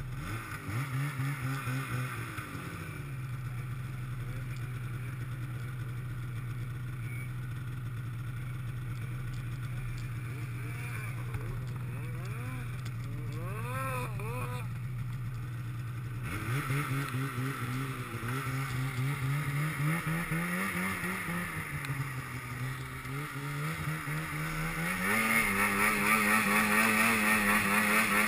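Mountain snowmobile's two-stroke engine idling steadily while another sled revs up and down in the distance. About halfway through the engine picks up and revs rising and falling, then runs harder and louder near the end as the sled climbs a slope.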